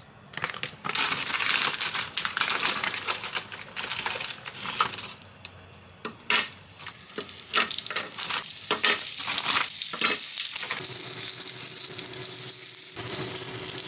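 Frozen crispy dumplings sizzling and crackling as they are laid one by one into hot oil in a small square frying pan on a gas burner, the sizzle growing denser and steadier partway through. The plastic bag rustles near the start.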